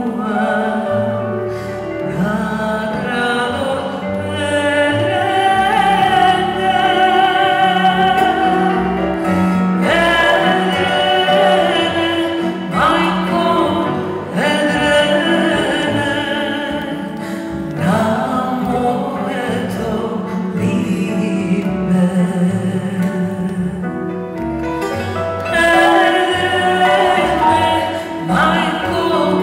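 A woman singing a Balkan folk song live with strong vibrato, accompanied by a small acoustic ensemble of grand piano, double bass, acoustic guitars and strings.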